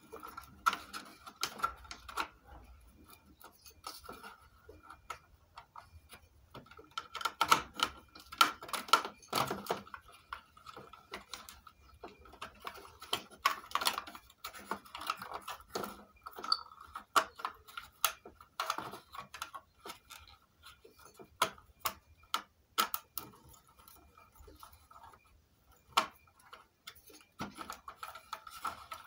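Irregular clicks, taps and rattles of hands handling circuit boards, plug-in wire connectors and a screwdriver inside an opened home theatre's plastic casing, busiest a few seconds in and again around the middle. A faint steady high tone runs underneath.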